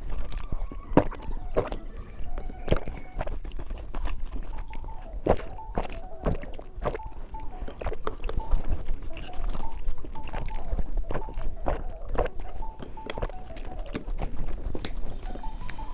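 Close-miked eating of candy: irregular sharp crunches and clicks of chewing and biting, over faint background music.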